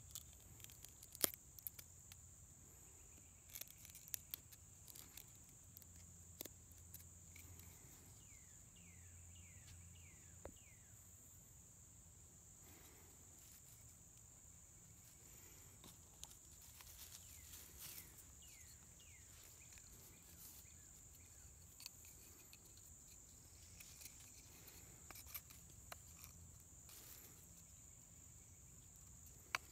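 Faint, steady high-pitched drone of insects, with scattered sharp clicks and taps as wood is cut with a knife and sticks are handled; the loudest click comes about a second in.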